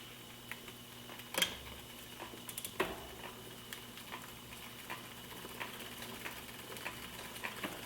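Bicycle chain clicking faintly as it is worked onto the chainring teeth: scattered light metallic ticks, the sharpest about a second and a half in.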